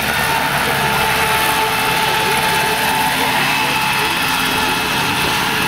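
Radio-controlled scale AS 332M1 Super Puma helicopter flying low near the ground, its rotors and drive making a loud, steady sound with an even high whine.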